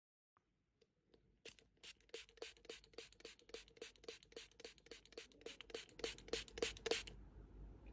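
A fine-mist spray bottle's pump pressed rapidly over and over, about three to four sprays a second, each a short click and hiss, misting liquid onto a palm. The run starts about a second and a half in and stops about a second before the end.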